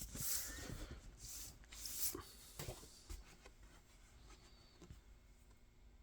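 Soft rustling swishes and a few light clicks of a vinyl record and its paper sleeve being handled. The sounds fade to quiet after about three seconds.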